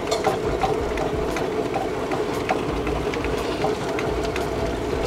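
Electric tabletop wet grinder running, its steel drum turning against a stone roller with a steady drone and scattered clicks. It is churning soaked parboiled rice that has been ground to a fine, smooth batter.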